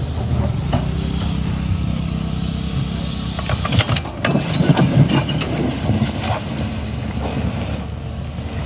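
Tracked hydraulic excavator's diesel engine running steadily. About halfway through comes a burst of knocks and clatter as the bucket works the dirt and stone pile.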